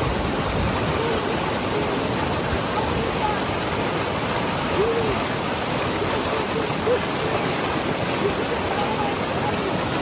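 River water rushing steadily, a fast stream running loud and unbroken. Faint short voice-like sounds come through it now and then.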